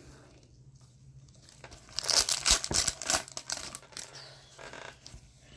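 A foil trading-card pack wrapper (Upper Deck Series One hockey) being torn open and crinkled by gloved hands. There is a burst of tearing and crackling about two seconds in, then lighter crinkling as the cards are slid out.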